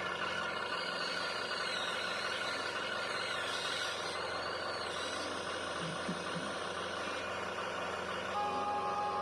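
Electric motors and gearboxes of radio-controlled construction machines whining as they work. The high whine wavers up and down in pitch as the machines speed up and slow down.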